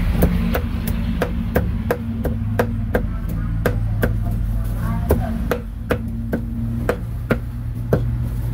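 Cleaver chopping meat on a wooden chopping block in a steady run of even strokes, about three a second.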